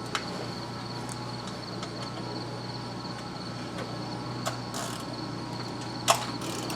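A few sharp metal-on-metal clicks and a short scrape from hand tools, the loudest about six seconds in, over a steady low hum and a thin high whine.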